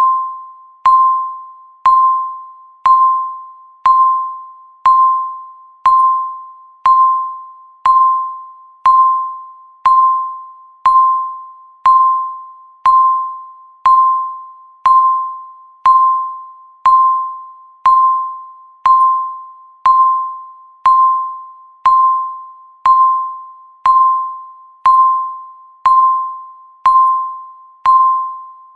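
Countdown timer's tick sound marking each second: one sharp, bell-like tick a second, each with a short ringing tone that fades away before the next.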